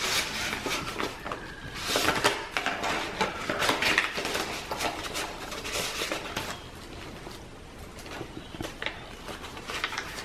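Paper pages and card of a thick handmade journal being handled and turned: rustling and soft scraping with small taps, busiest in the first four seconds, then quieter.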